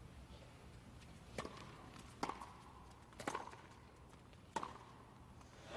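Tennis ball struck by rackets in a rally: four sharp hits roughly a second apart, each with a short string ping.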